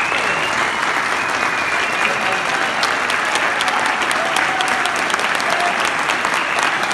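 Audience applauding steadily, a dense clapping with no break.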